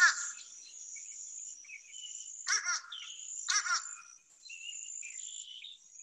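Fish crow calling: three short calls, the second and third each a quick double note. Under them runs a steady high insect trill, with faint chirps of other birds.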